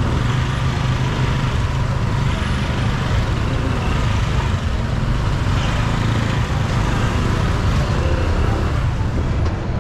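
Steady city street traffic: vehicle engines running and road noise, with a constant low rumble.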